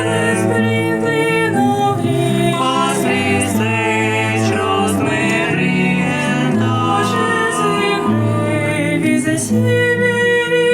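Quartet playing music, several sustained parts moving together in harmony with vibrato on the upper lines.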